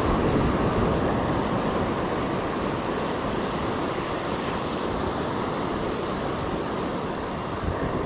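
Spinning reel cranked steadily to bring in a hooked fish, under an even, steady rush of surf and wind on the microphone.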